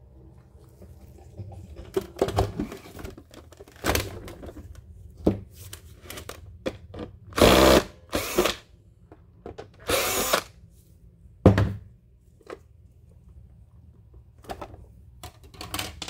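Cordless drill-driver spinning in several short bursts as it backs out the battery-cover screws on the underside of a robot vacuum. Small clicks and knocks of the plastic housing being handled come between the bursts.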